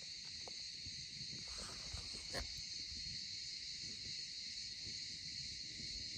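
Steady high-pitched chirring of an insect chorus, crickets or cicadas, unbroken throughout, with a faint low rumble underneath and a brief click about two and a half seconds in.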